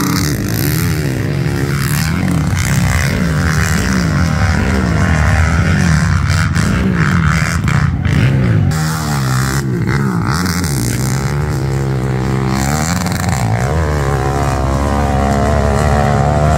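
Dirt bike engine revving hard under full throttle up a steep hill climb, its note repeatedly rising and dropping as the rider works the throttle and shifts.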